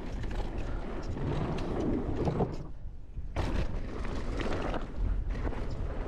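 Mountain bike riding down a rough dirt trail: a steady rattle and clatter of chain, suspension and tyres over a low rumble, with a short lull about halfway through that ends in a sudden clatter.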